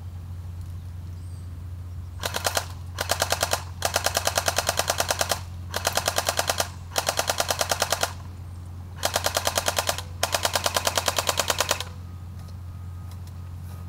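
Well D90-H (P90-style) battery-powered airsoft electric gun firing full-auto in seven bursts of rapid, even clicks, some short and some over a second long, with short pauses between them. A steady low hum sits underneath.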